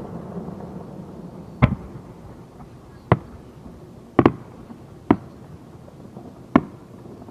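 Fireworks heard from about 500 m away: five sharp bangs at uneven intervals, the third one doubled, over a fading low rumble.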